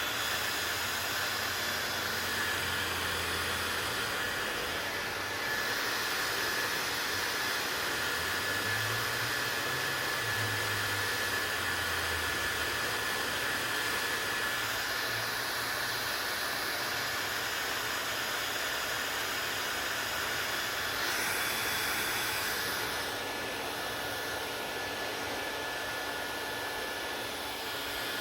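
Hair dryer running steadily: a continuous rush of blown air with a faint steady high whine, its tone shifting slightly a few times.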